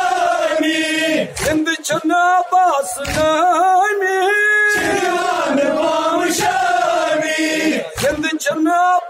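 A man singing a noha, a Shia mourning lament, into a handheld microphone, in long held notes with wavering turns, pausing briefly for breath a few times.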